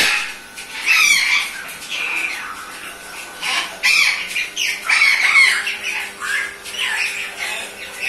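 African grey parrot squawking repeatedly, a string of short harsh calls that slide up and down in pitch, loudest about a second in and again around four to five seconds in.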